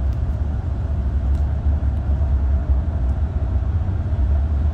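Steady low rumble of road and engine noise inside a car's cabin.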